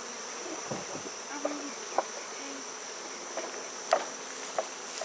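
Honeybees buzzing around an opened hive, with single bees humming briefly as they fly close past, over a steady high-pitched insect whine. A few sharp light knocks sound about two, four and four and a half seconds in.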